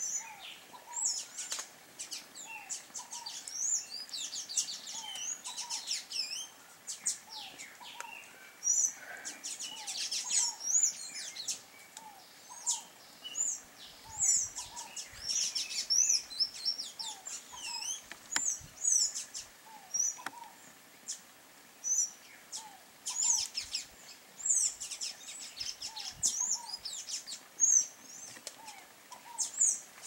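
Small songbirds chirping: many short, high-pitched chirps in quick, irregular runs. A fainter, lower note repeats about once a second underneath.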